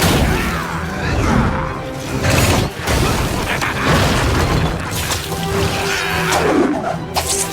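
Action-scene music score with several sudden crashing impact sound effects over it.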